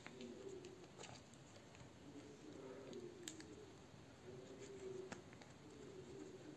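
Quiet handling of a printed paperback comic: a few faint clicks and paper sounds from fingers on the pages, with a page turned about five seconds in.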